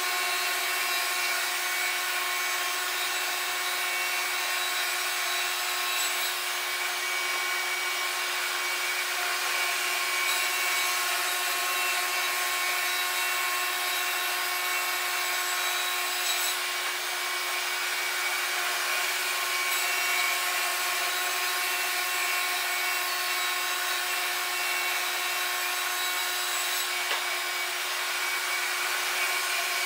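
Wood-Mizer LT50 band sawmill running steadily, its band blade cutting through an oak log: a continuous hiss of sawing with a steady machine whine.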